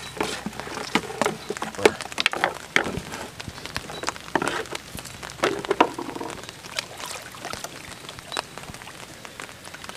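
Bamboo fish traps knocked and shaken over a plastic bucket, with small catfish dropping out of them into the bucket: an irregular patter of sharp knocks and wet clicks, with the loudest about two seconds in and again near six seconds.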